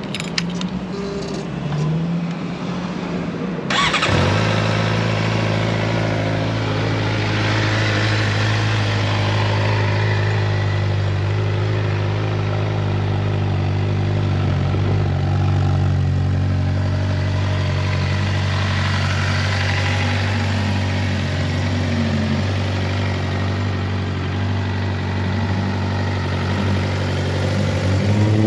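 Suzuki GSX-R600 inline-four sport-bike engine firing up about four seconds in, then idling steadily.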